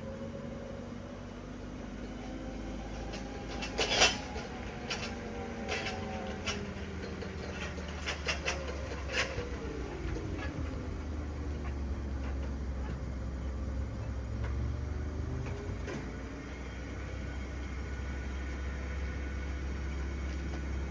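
A vehicle engine running, its pitch slowly rising and falling, with a few sharp clicks and knocks, the loudest about four seconds in.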